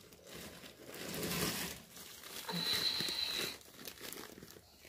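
Plastic bag or packaging crinkling and rustling as it is handled, in two spells. A thin high whistle-like tone sounds for about a second midway.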